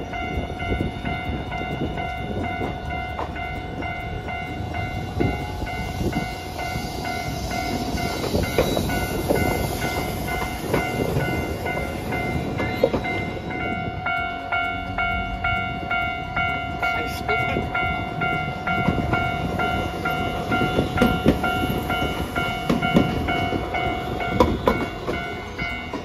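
Railway level-crossing alarm ringing in an even, repeating electronic ding all the way through, over the low rumble of a tram on the track. From about twenty seconds in, sharp wheel clicks on the rails grow louder as an articulated low-floor tram comes into the stop.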